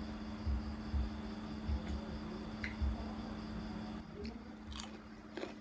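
A person eating rice and curry close to the microphone: wet chewing and squishing with irregular soft thuds, then a few sharp clicks near the end, over a steady low hum.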